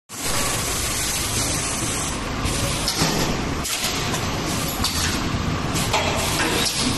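Corrugated paper baking cup tray forming machine running: a steady hiss throughout, with a few faint knocks.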